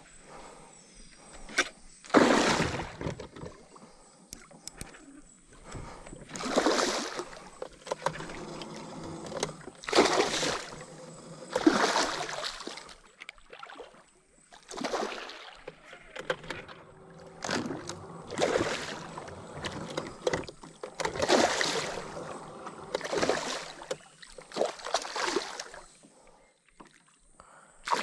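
Water splashing and sloshing in separate bursts every two to four seconds, with quieter lapping between them.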